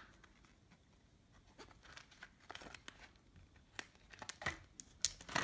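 Handling of a small repair toolkit and its plastic packaging: scattered crinkling and rustling with light clicks, growing busier over the last few seconds.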